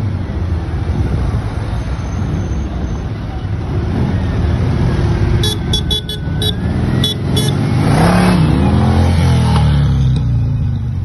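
Parade vehicles, motorcycles and trikes, passing one after another with their engines running. A rapid run of short, high horn toots comes in the middle. A trike's engine grows loudest as it passes close, near the end.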